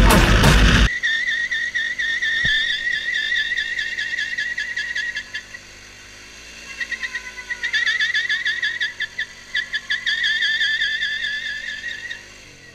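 Loud music cuts off about a second in, then a high, rapidly trilling whistle goes on in phrases, with a short break about halfway through.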